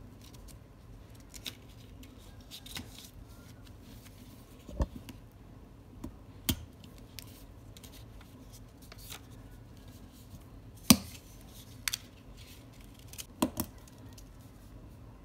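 Stationery handled on a desk: a memo pad and its clear plastic sleeve rustle, with about six sharp clicks and taps scattered through, the loudest about eleven seconds in.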